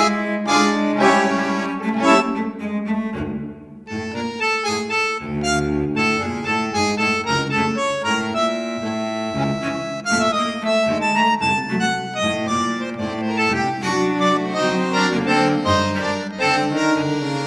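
Background music with a melody carried by sustained, reedy or bowed-sounding instrumental notes.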